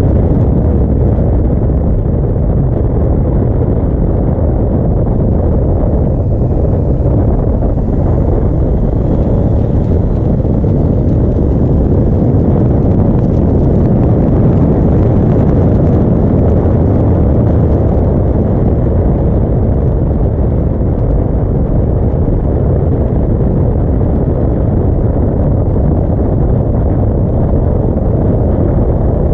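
Yamaha V-Max 1200's V4 engine running at a steady cruise, mixed with steady wind rush on the microphone as the motorcycle rides along.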